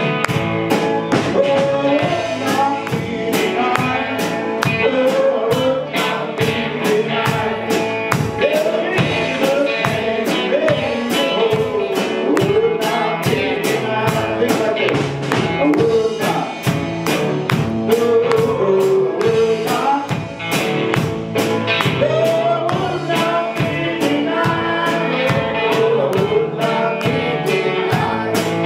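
Live gospel worship song: a man singing lead over strummed guitars, with a steady beat.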